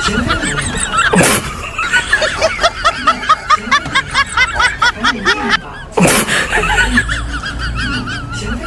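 High-pitched human snickering laughter, a quick run of repeated 'heh-heh' pulses, over background music. A short swish comes about a second in and again around six seconds.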